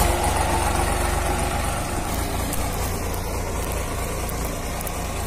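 A 1991 Swaraj 735 FE tractor's three-cylinder diesel engine running steadily as the tractor drives along, with a low, even exhaust beat.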